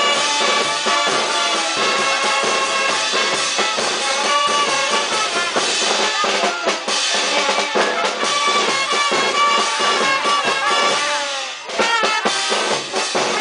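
Band music with drums, sustained melodic notes over steady drum strokes, dipping briefly about three-quarters of the way through.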